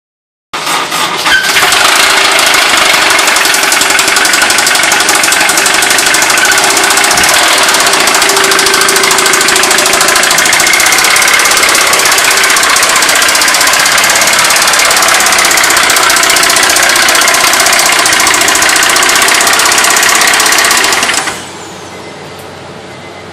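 Honda S2000's inline-four engine running with a loud, rapid, heavy knock from a failed connecting-rod bearing, a very severe rod knock. The engine stops about 21 seconds in, leaving a much quieter steady background noise.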